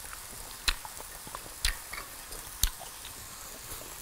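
Knife and fork clinking on a plate while cutting a grilled pork chop: a few sharp clicks about a second apart, over the steady sizzle of pork chops on a tabletop grill.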